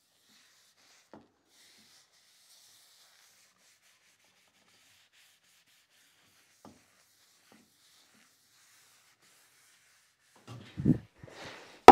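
Faint rubbing of a cloth rag wiping finish across a pine stool seat, with a couple of light knocks. A few louder thumps come near the end.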